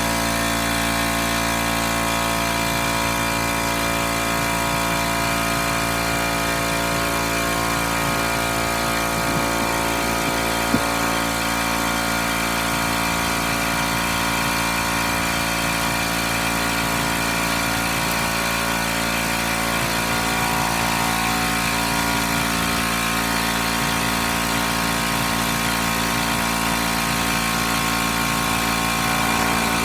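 Air compressor running steadily, filling a new motorcycle tyre with air to seat its bead. A single brief click about eleven seconds in.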